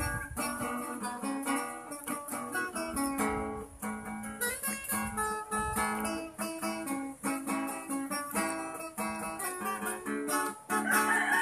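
Background music: plucked and strummed guitar playing a steady melody.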